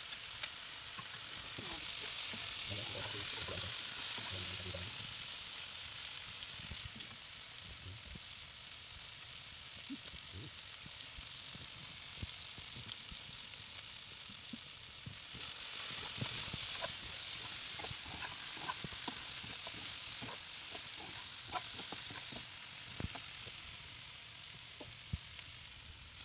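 Chicken pieces sizzling in a hot wok-style pan while a metal spatula stirs them, with scattered scrapes and taps of the spatula on the pan. The sizzle swells louder about two seconds in, and again about fifteen seconds in as a ladle of dark sauce goes into the pan.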